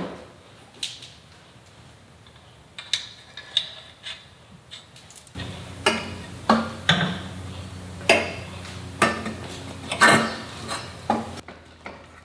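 Metal clinks and knocks of tools and exhaust hardware being handled while a motorcycle muffler is fitted. They come at irregular intervals, a few light ones at first and then more frequent, louder clatter in the second half.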